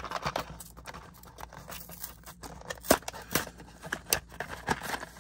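A small cardboard minifigure box being opened by hand: cardboard flaps pulled apart, with rustling, scraping and a string of sharp clicks and snaps, the loudest about three seconds in.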